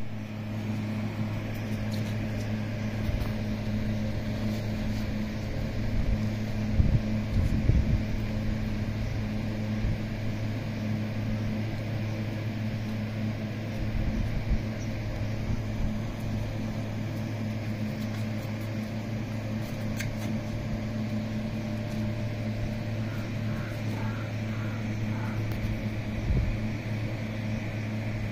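A steady low mechanical hum from a running machine, with a few low thumps about seven to eight seconds in.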